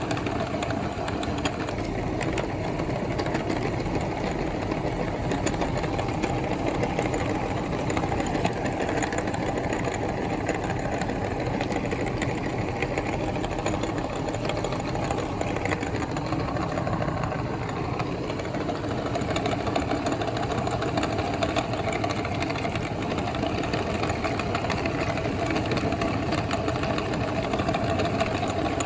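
Meat grinder's motor running steadily under load, a continuous mechanical hum with a fast fine rattle.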